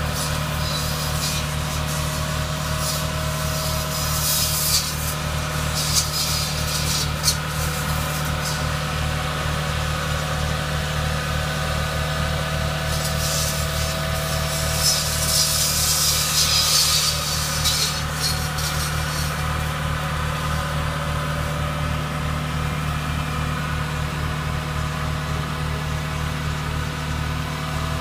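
Tractor engine running steadily while driving hydraulic contour saws for orchard pruning, with bursts of hiss as the saws cut through branches and leaves, several short ones early and a longer stretch about halfway through.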